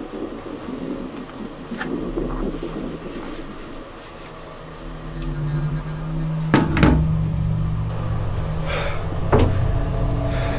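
Heavy thuds against a door, two close together just past the middle and one more near the end, over a low sustained musical drone that swells in about halfway through.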